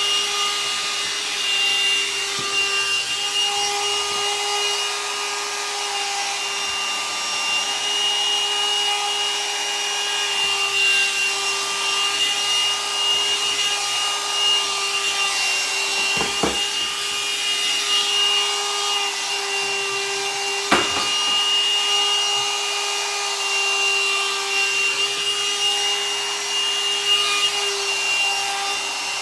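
Hot-air dryer brush running steadily, a motor whine with a high tone over the rush of air, with the brush rubbing through the hair. Two brief knocks come about 16 and 21 seconds in.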